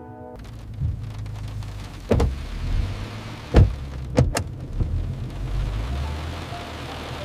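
Steady rain with a low rumble of thunder and several sharp thunder cracks, about two seconds in, again at three and a half seconds (the loudest), and twice more just after four seconds.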